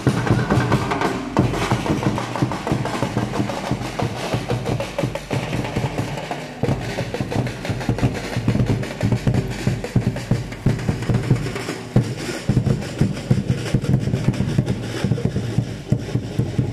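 Marching drums playing a steady, busy beat.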